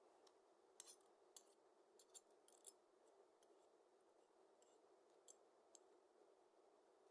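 Near silence with a scattering of faint, sharp little clicks, most of them in a cluster about one to three seconds in and a few more spaced out after.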